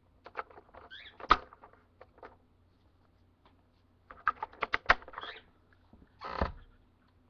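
Hard plastic vacuum cleaner attachments being handled: scattered clicks and knocks, a loud knock about a second in, a quick run of clicks around four seconds, and a short scrape or rustle near the end.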